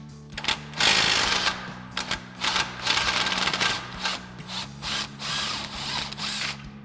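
Cordless impact wrench with an 18 mm socket hammering in a string of bursts, the first and loudest about a second in, breaking loose and running out the rear lower shock mounting bolt of a Jeep Wrangler JK while a wrench holds the nut.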